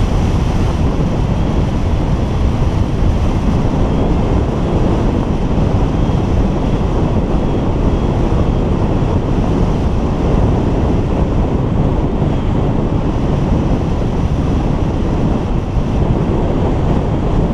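Loud, steady rush of airflow over the microphone of a camera mounted on a hang glider's wing in flight.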